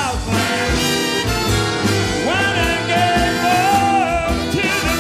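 Swing band playing live — piano, guitar, upright bass and drums — with a singer; a long note is held from about two seconds in.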